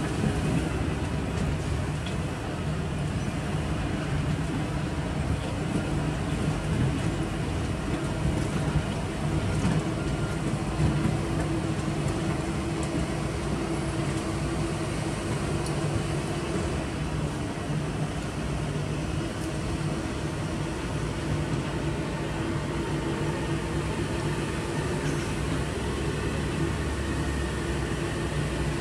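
Wirtgen cold milling machine working along the road: a steady, loud diesel drone mixed with the grinding of its cutting drum chewing up the old asphalt.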